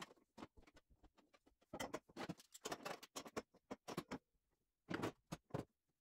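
Faint, irregular handling noise: quick rustles, scrapes and light taps as tape is pulled, stuck and pressed against the car's roll-cage tubes and bare floor.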